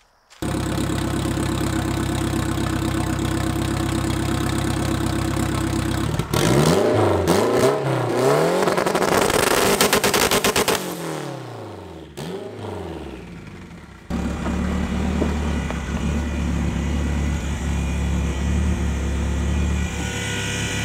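Turbocharged K20 four-cylinder in a Honda Civic idling steadily, then revved up and down several times in quick succession about six seconds in. It settles back to a steady idle for the last seven seconds.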